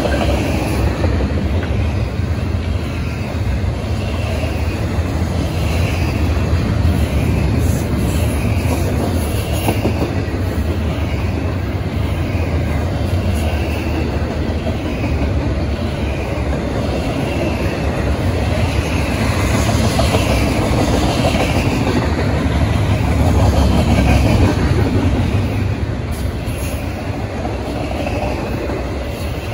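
Double-stack intermodal freight cars of a Norfolk Southern train rolling past, their steel wheels running on the rails in a steady, loud, low noise. It swells a little past the middle and eases toward the end.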